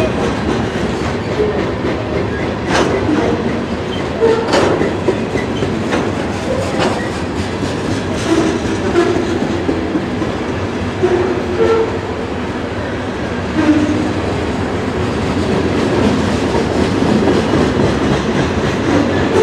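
Freight cars of a manifest train rolling past on jointed track: steady wheel-and-rail rumble with irregular clacks as the wheels cross the rail joints.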